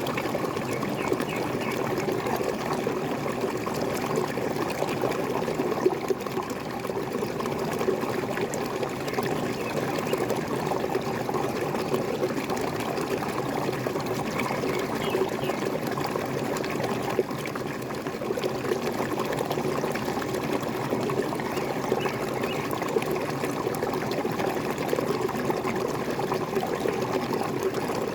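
Water falling and splashing steadily from a waterfall, an even, unbroken rush and trickle.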